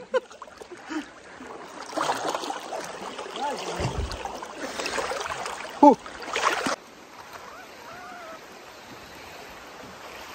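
River water sloshing and splashing close to the microphone as a man wades through it, with one short exclamation just before a sudden cut about two-thirds of the way through; after that, the quieter steady rush of the flowing river.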